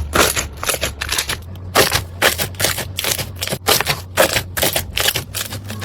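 Slime being squished and pressed by hand: a run of short noisy pops and squelches, about two or three a second.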